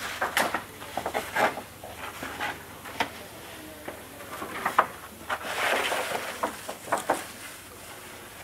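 Thin wood veneer sheets rustling and crackling as they are handled and slid across a veneer splicer's table, with irregular sharp clicks and a longer rustle about six seconds in.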